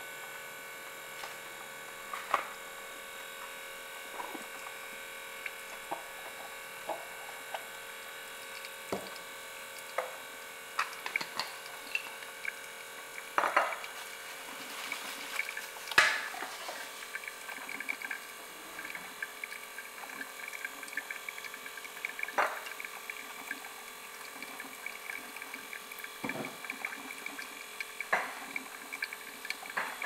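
Mr. Coffee latte maker brewing: a steady electrical hum with scattered ticks and pops, and a sharp crack about halfway through, after which a denser crackling patter of hot coffee dripping into the glass carafe carries on.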